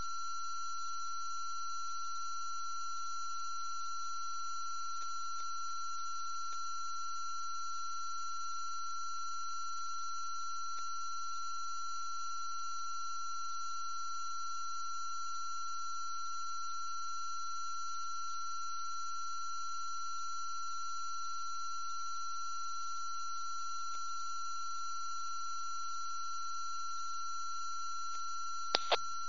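A steady high-pitched electronic tone with fainter, higher steady tones above it, unchanging throughout, and two short clicks near the end.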